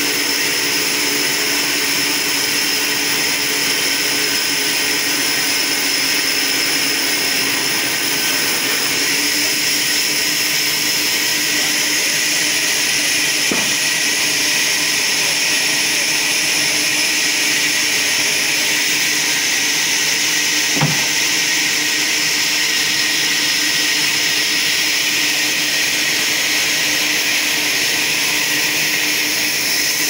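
Sawmill band saw running steadily with a high, continuous whine. Two short knocks come through, a faint one a little before halfway and a sharper one about two-thirds of the way in.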